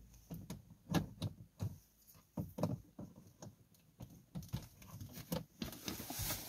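Scattered light clicks and knocks of handling as an OBD-II code reader's cable is plugged into a car's diagnostic port, with a soft rush of noise near the end.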